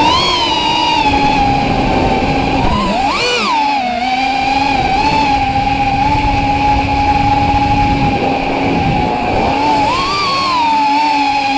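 Brushless motors and propellers of a 4S Neato180 FPV racing quadcopter (Racerstar 2205 2600kv motors) whining steadily, heard from the onboard camera with rushing air beneath. The pitch jumps sharply up and back down about three seconds in and again near the end as the throttle is punched.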